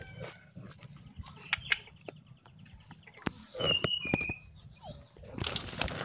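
Dry grass and twigs of a bird's nest rustling and clicking against a phone pushed into it, with the densest rustle near the end. Several short, high chirps come between about three and five seconds in, the last one the loudest, over a steady high-pitched whine.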